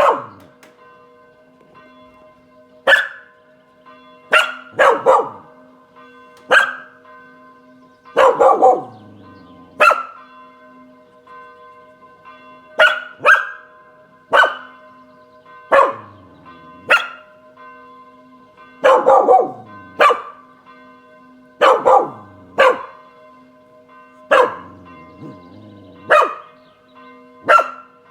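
A Spanish Water Dog barking repeatedly, single barks or quick pairs every second or two, over church bells ringing steadily throughout.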